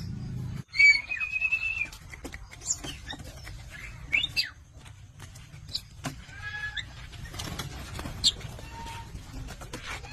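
Javan myna calling: a string of short whistles, squeaks and chattering notes that sweep up and down, with one held whistle about a second in and scattered sharp clicks between them.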